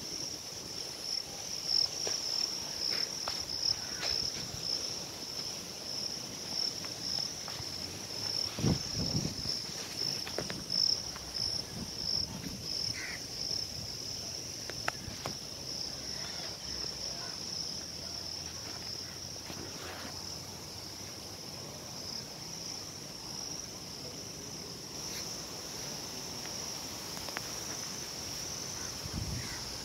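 Steady high-pitched chorus of insects, a continuous pulsing buzz. In the first half there are scattered low bumps and a few faint clicks.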